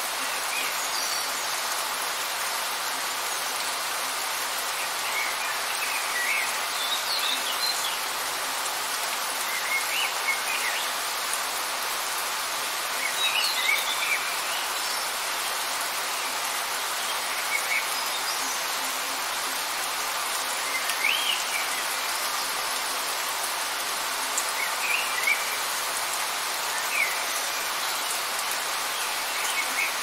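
Light rain falling in a steady, even hiss, with short high bird chirps breaking through every second or two.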